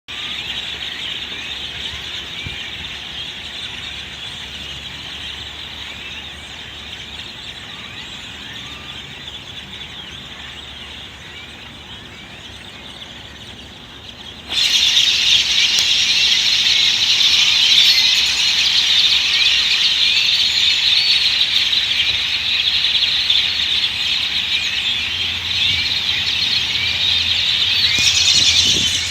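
A large flock of birds chattering: a dense, continuous din of many high chirps and squeals. It turns suddenly louder and shriller about halfway through.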